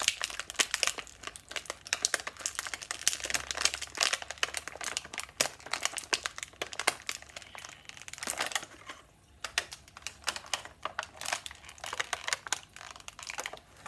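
Toy packaging crinkling and crackling as Bakugan figures are worked out of a starter pack: a thick run of sharp crackles that thins to scattered clicks and rustles near the end.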